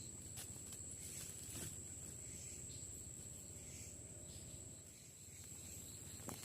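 Forest insects trilling: a steady high, thin drone with a repeated pulsing chirp beneath it, with a few faint clicks over low background rumble.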